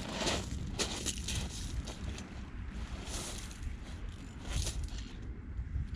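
Wind buffeting the microphone as a steady low rumble, with a few short hissing scuffs, about three over the stretch, from footsteps and handling on the shingle beach.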